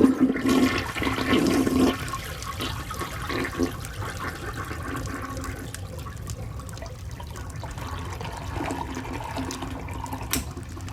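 Toilet flushing: a loud rush of water over the first two seconds, then a steadier running-water sound as it drains and refills.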